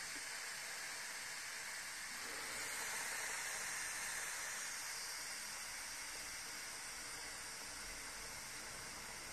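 Steam hissing steadily out of the release vent of a Tefal CY505E40 multi-cook pressure cooker while the pressure-release button on the lid is held down. The cooker is letting out its remaining pressure, and the lid will not open until all the steam has gone.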